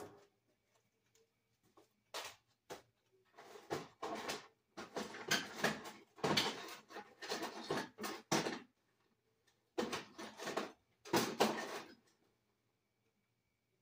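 A knock at the start, then irregular scraping, rustling and clattering as objects are handled and moved about low down under the workbench, in a run of uneven bursts that stops about two seconds before the end.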